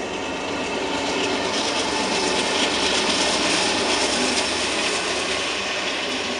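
Norfolk Southern diesel locomotive passing close at speed, followed by double-stack container cars: a steady loud rush of engine and steel wheels on rail, loudest in the middle.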